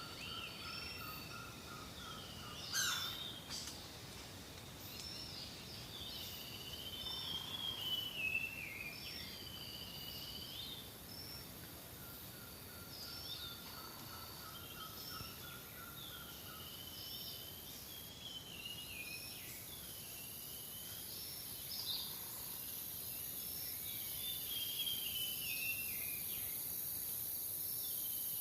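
Outdoor chorus of birds calling, many short swooping and warbling notes, over a steady high insect drone that grows louder about two-thirds of the way in.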